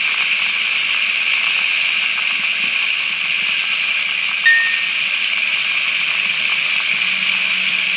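Water running steadily through a plastic pocket sluice and spilling into the tub below, a constant hissing rush. A brief high squeak sounds about halfway through.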